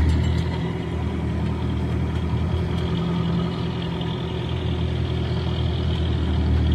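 Off-road vehicle's engine running steadily at low revs with a low drone, getting a little louder near the end.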